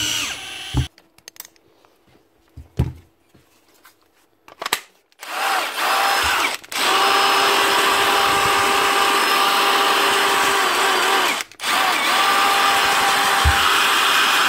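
A cordless drill drives a housing screw home at the start, its motor pitch falling as the screw tightens, followed by a few handling clicks and knocks. From about five seconds in, a Milwaukee M18 impact driver runs free with no load, a steady whine that stops briefly twice and restarts. It runs without cutting out now that the bad solder joint on its battery terminal has been re-soldered.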